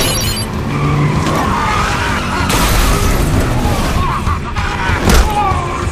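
A vehicle's tires squealing and skidding, with a sharp impact about five seconds in.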